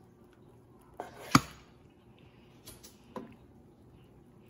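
Chef's knife slicing through a soft rolled omelette and knocking on a wooden cutting board: a few separate chops, the loudest about a second and a half in.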